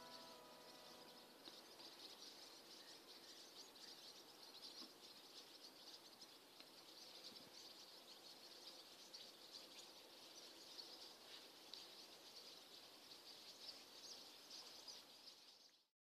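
Faint chorus of many small birds chirping and twittering together over a low hiss. It cuts off suddenly near the end.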